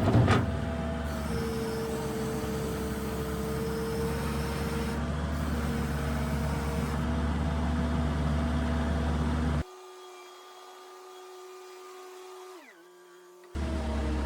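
New Holland LS170 skid steer's diesel engine running steadily, with a loud knock right at the start. About ten seconds in, the engine sound cuts out abruptly and a quieter hum with a falling tone takes its place for about four seconds, then the engine sound returns.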